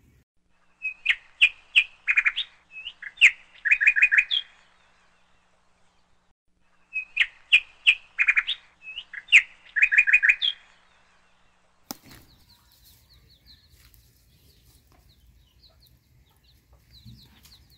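A songbird singing the same short phrase twice: a few clear whistled notes running into a fast trill. In the second half only faint, high chirps are heard.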